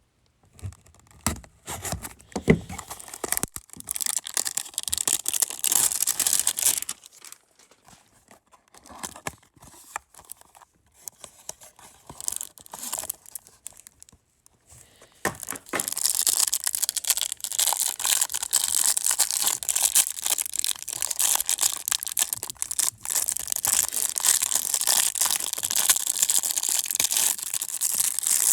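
A hanger box of trading cards being torn open by hand, with the packaging crinkling. There are sharp clicks at first, a burst of tearing, a quieter patch, then steady crinkling and crackling for about the last half.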